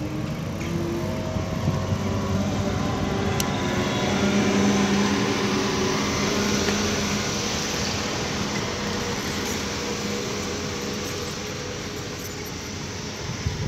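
Vehicle engines running: a steady mechanical hum with a low drone that swells to its loudest about four to five seconds in, then slowly fades.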